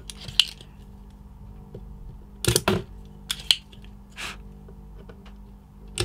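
Spring-loaded solder sucker (desoldering pump) snapping and clicking as its plunger is fired and re-cocked while desoldering a chip's pins: several sharp clicks, the loudest pair about two and a half seconds in.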